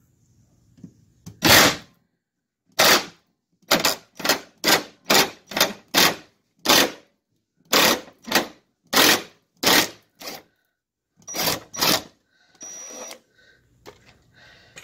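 WD-40 aerosol can sprayed in about fifteen short squirts, one every half second to a second, onto rusted bolts.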